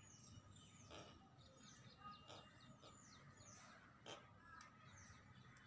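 Near silence with faint, quick, high chirps from a bird, each falling in pitch, repeating throughout. A couple of soft clicks come through as well.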